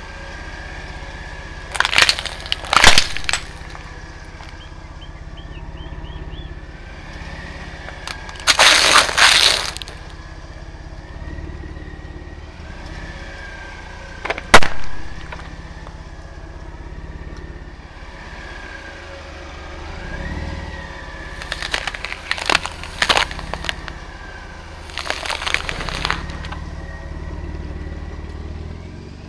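A big off-road truck tire rolling over and crushing plastic dessert cups and apples: five bursts of crunching and cracking, one a single sharp crack, over a steady low engine rumble.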